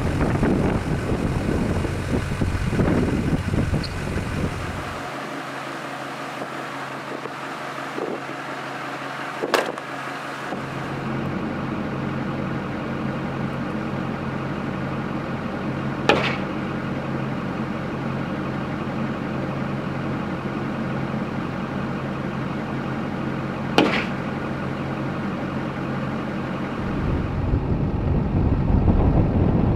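Three shots from a .44 Marlin lever-action rifle, about seven seconds apart, heard from inside the cab of a pickup whose Duramax diesel is idling steadily underneath.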